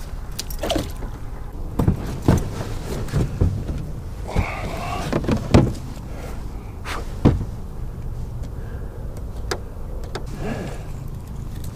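Hollow clunks and knocks from a plastic fishing kayak and the gear in it as it is handled, with a longer grinding scrape in the middle as the hull runs up onto a gravel bank.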